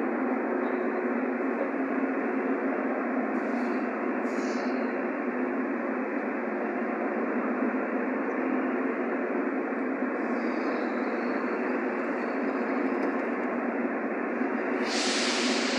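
Steady, even noise of a metro platform with a train standing at it. A higher hiss joins in near the end.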